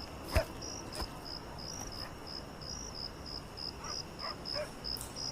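Cricket chirping steadily, about three short high chirps a second, with a single sharp knock about half a second in.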